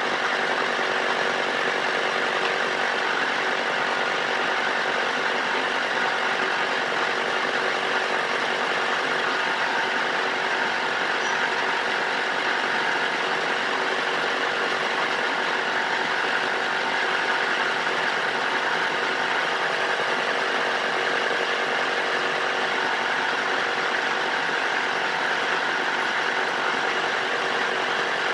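A motor running at a steady speed: an even mechanical noise with several faint steady whining tones through it, never changing in speed or loudness.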